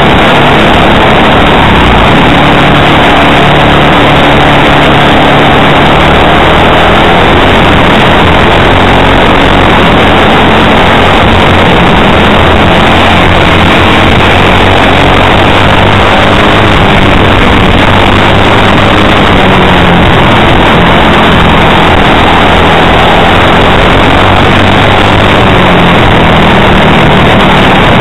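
Racing kart's single-cylinder four-stroke engine running on track, its pitch drifting up and down with throttle, picked up by an onboard camera microphone so close that the sound is overloaded and distorted throughout.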